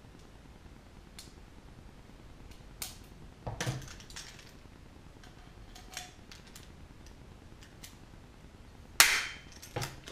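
Small metallic clicks and taps as a blind rivet is handled and a hand rivet gun is worked, then one sharp, loud snap about nine seconds in as the rivet is pulled and its mandrel breaks off.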